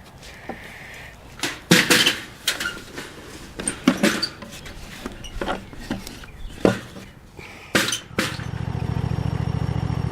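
Wooden boards and beams of a hive stand being handled and set down: a string of irregular sharp knocks and thuds with scuffing between them. About eight seconds in, a steady low hum with an even pulse begins.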